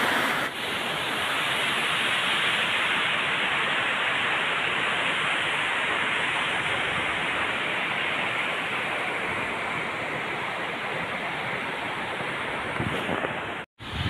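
Waterfall pouring onto rocks: a steady, unbroken rush of falling water that cuts off abruptly near the end.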